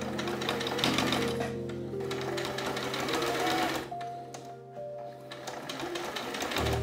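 Domestic sewing machine stitching through thick cotton velvet bias binding in fast runs of needle strokes, stopping briefly about four seconds in. Background music plays underneath.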